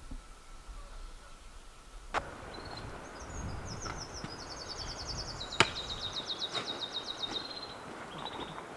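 Quiet room tone gives way to outdoor ambience. A small songbird sings a long, rapid, high trill, and a digging tool strikes the soil with sharp knocks, once at the change and once more, loudest, halfway through.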